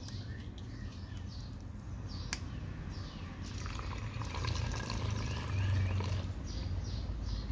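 Drinking yogurt poured from a small bottle into a plastic funnel set in a plastic bottle, a thin stream of liquid trickling down, louder in the second half.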